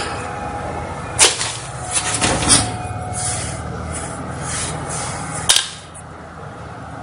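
Open desktop computer running with a steady fan hum, broken by a few sharp clicks about one, two and a half and five and a half seconds in. After the last click the hum drops noticeably quieter.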